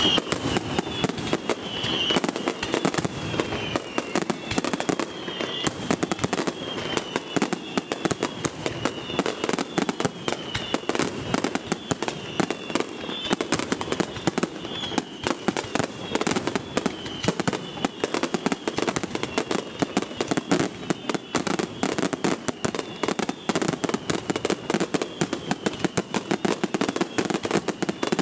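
Fireworks display: a dense, continuous barrage of rapid bangs and crackling from aerial bursts, with a high wavering whistle running through it.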